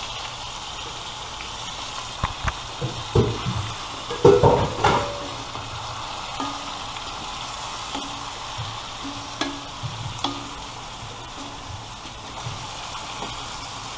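Chicken pieces and vegetables sizzling in a metal wok as a wooden spatula stirs them. The spatula knocks and scrapes against the pan, most often and loudest between about two and five seconds in.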